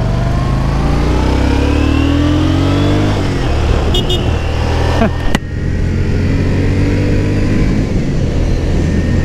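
Yamaha Drag Star 400's V-twin engine accelerating under way. Its pitch rises for about three seconds, drops sharply with an upshift, then climbs again and settles to a steady pull. A couple of sharp knocks come about five seconds in.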